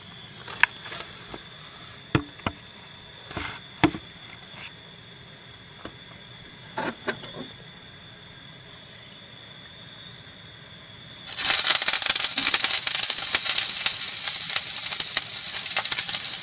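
Chopped vegetables, kale among them, hitting hot oil in a skillet and sizzling loudly, starting suddenly about two-thirds of the way in. Before that, a few light knocks and clicks.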